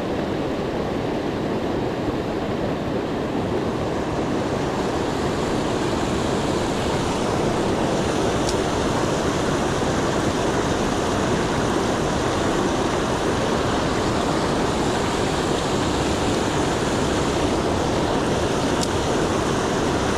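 Swift river water rushing steadily over rocks and a small cascade.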